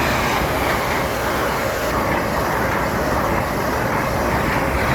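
An LNER Azuma Class 801 electric train passing through the station. It makes a loud, steady rush of wheel and air noise.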